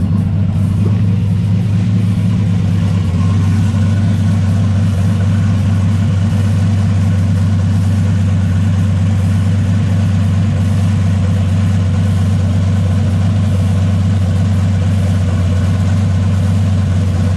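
Turbocharged 5.3 L LS V8 idling steadily, heard from underneath near the exhaust.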